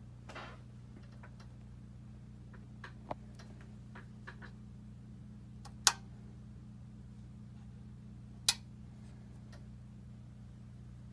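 A VWR DVX-2500 multi-tube vortexer, switched on but not yet shaking, giving a steady low electrical hum. A few sharp clicks sound over it, the two loudest about six and eight and a half seconds in.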